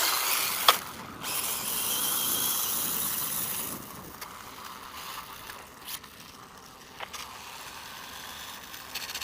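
Brushless RC dirt bike running over sand: a burst of high-pitched motor and chain-drive whir with the tyres hissing in the sand for about two and a half seconds, then quieter rattling and scattered clicks.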